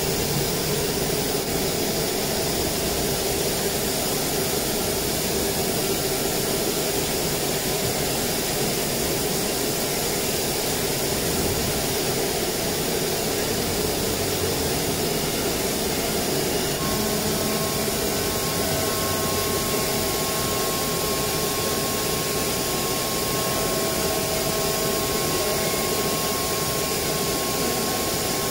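CNC router running steadily while it creases and cuts a plastic sheet, making a constant machine drone with airy noise. A higher steady whine joins in a little past the middle.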